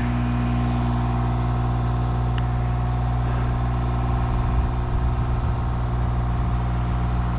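An engine idling steadily at constant pitch, with no change in speed.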